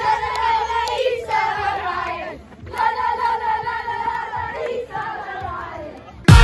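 A group of boys chanting together in celebration, several long drawn-out phrases with short breaks between them.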